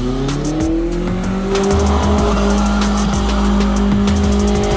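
Car engine revving up over the first second or so and then held at high, steady revs while the tyres squeal in a donut, with many short sharp crackles throughout.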